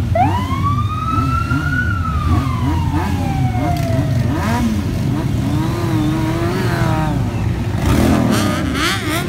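A group of motorcycle engines running and being revved again and again. Over the first four seconds, a long wailing tone rises quickly and then slowly falls.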